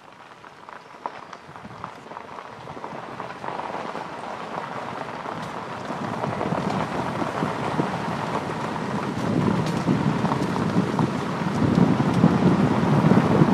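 Car tyres running over a rough dirt and gravel road, with scattered small clicks and a rumble that grows steadily louder.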